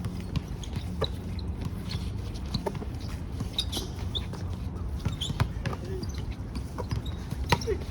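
Basketball bouncing on a hard court during play, a string of irregular sharp knocks, over a steady low hum.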